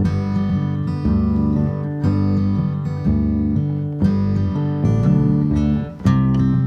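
Background music: acoustic guitar strumming chords, with a change of chord about every second.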